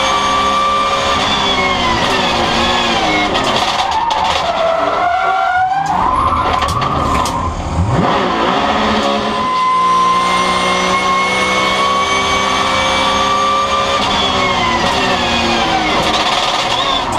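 Porsche 911 GT3 Cup race car's flat-six engine, heard from inside the cockpit. Its pitch drops in steps as the car brakes and downshifts, about a second in and again about fourteen seconds in, and climbs steadily under full throttle in between.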